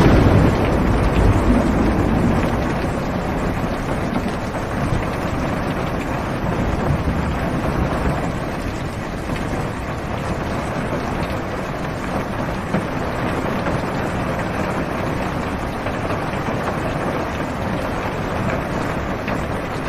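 Steady heavy rain falling on a car's roof and windows, heard from inside the car. A low rumble is louder in the first couple of seconds and then eases off.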